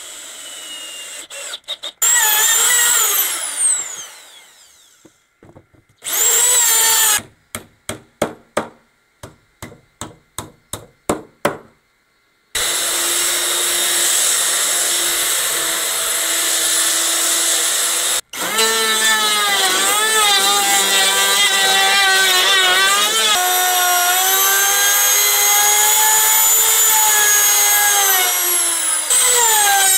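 Cordless drill-driver running, its motor winding down, then pulsed in about a dozen short bursts to drive screws into pine. A belt sander then runs steadily on a pine board for about five seconds. After that a wood router runs with a high whine that dips in pitch as it bites into the board edge.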